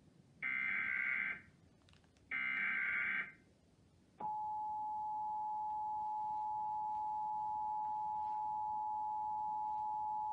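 Emergency Alert System tones: two roughly one-second bursts of the buzzy SAME digital header, then, about four seconds in, the steady two-tone EAS attention signal starts and holds, announcing a child abduction alert.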